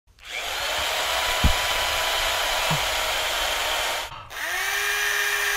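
A power tool's motor running, cutting out about four seconds in, then spinning up again with a rising pitch that settles into a steady whine. A dull thump comes about a second and a half in.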